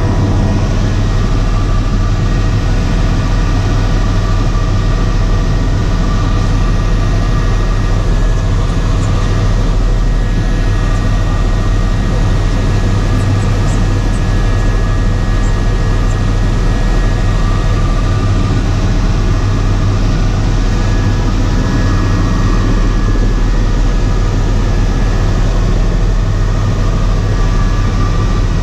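Helicopter in cruise flight heard from inside the cabin: a loud, steady drone with a strong low rotor hum and thin, steady whining tones above it.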